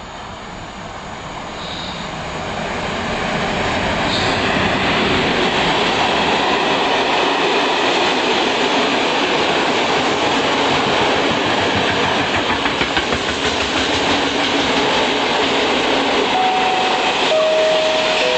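Freight train passing: the ET22 electric locomotive grows louder over the first few seconds, then a long line of hopper wagons rolls by with a steady rumble and the clatter of wheels over the track. A few brief, steady squealing tones come near the end.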